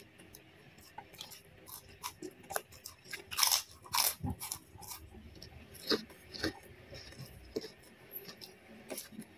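A person eating close to the microphone: chewing with irregular crunchy bites and wet mouth clicks, the loudest crunches a few seconds in.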